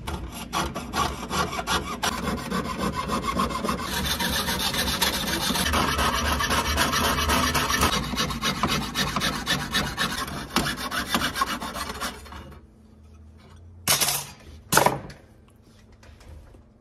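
Jeweler's saw cutting through sheet copper with rapid back-and-forth rasping strokes, stopping about twelve seconds in. Two short, loud bursts of noise follow near the end.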